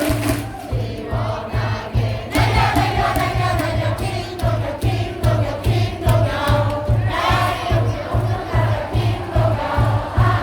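Baseball stadium crowd singing a player's cheer song in unison over amplified music, with a steady low drum beat about twice a second.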